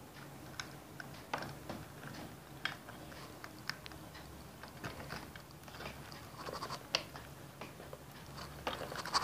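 Faint scattered clicks and scrapes of a stripped copper wire and fingers working against the brass screw terminals of a switch-socket plate as the wire is fed through them.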